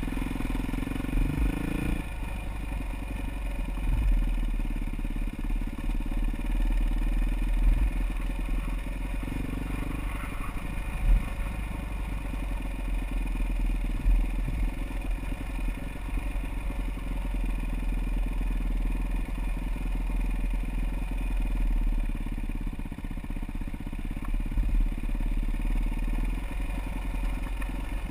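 Dirt bike engine running as it is ridden over a rough trail, its pitch shifting with the throttle, with scattered knocks and clatter from the bike over rocky ground.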